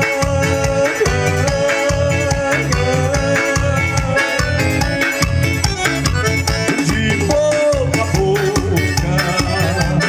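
Forró music in an instrumental passage: an accordion carries a gliding melody over a steady, driving low drum-and-bass beat, with no singing.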